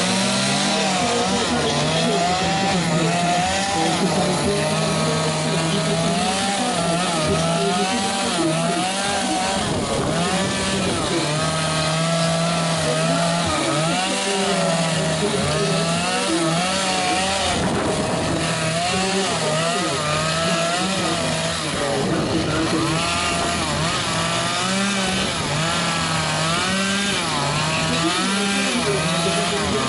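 Chainsaw carving wood, running steadily, its pitch rising and falling over and over as the cut goes on.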